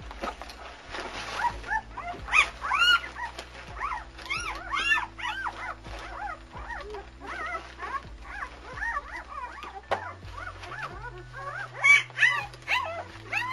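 Newborn German Shepherd puppies whimpering and squealing: many short, high cries that rise and fall, one after another, with a loud cluster about two seconds in and again near the end.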